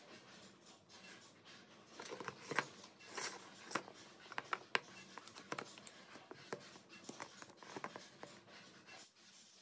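Small wooden and metal parts of a handmade wooden toy gun being handled and fitted together: irregular light clicks and knocks as a wooden cylinder is seated in the frame and a metal rod is slid in.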